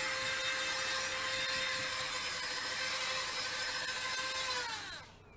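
A small electric motor whines at a steady pitch, then winds down with a falling pitch and stops near the end.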